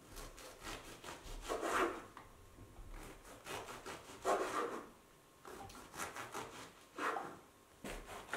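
Serrated bread knife sawing through a crusty baguette on a wooden cutting board: runs of rasping back-and-forth strokes through the crust, one run per slice, with short pauses between slices.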